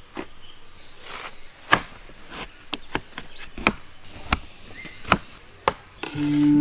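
A series of sharp, irregular knocks, roughly one every half second to second, then flute music comes in near the end.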